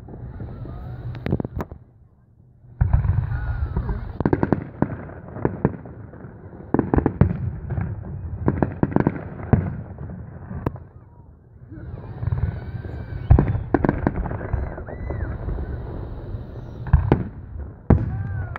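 Aerial firework shells bursting overhead: many sharp bangs in quick clusters, each with a low rumbling echo. The bangs pause briefly about two seconds in and again around eleven seconds.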